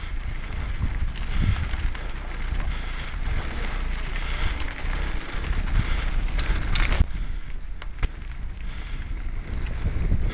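Mountain bike ridden over a rough dirt track: wind buffeting the bike-mounted camera's microphone over the rattle and clicks of the bike on the bumpy ground, with a brief louder burst of noise about seven seconds in.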